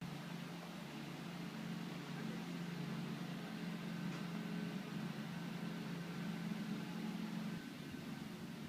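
A steady low mechanical hum under a faint hiss, fading about a second before the end.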